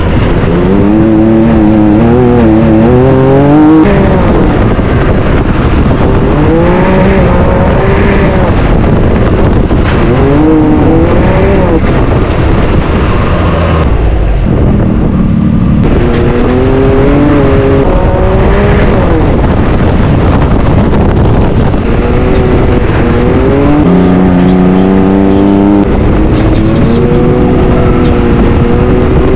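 Can-Am Maverick X3's turbocharged three-cylinder engine revving hard through an aftermarket Yoshimura exhaust while driving off-road. Its pitch rises and falls every few seconds as the throttle is worked, with a brief lull about halfway.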